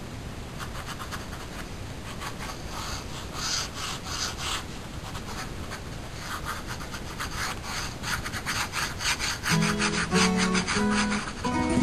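A pen scratching quick strokes across paper as a drawing is sketched, strongest about three to four and a half seconds in. About nine and a half seconds in, acoustic guitar notes begin over the scratching.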